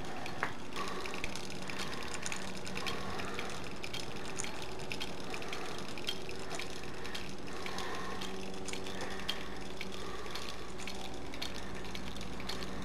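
Wind-up kinetic sculpture running: its clockwork spring motor, chain and sprocket drive and steel leg linkages clicking and rattling irregularly over a steady low hum.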